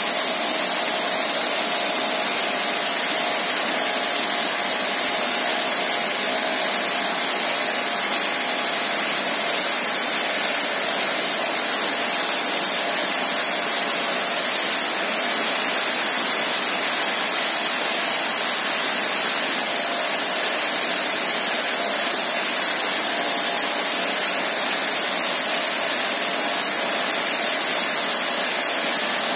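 Handheld electric core cutting machine running steadily as its core bit cuts through a brick wall: a loud, unbroken high whine over an even grinding hiss.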